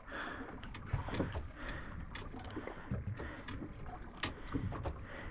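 Ambient sound on a small boat at sea: a steady low rumble of wind and water, with scattered light clicks and taps throughout.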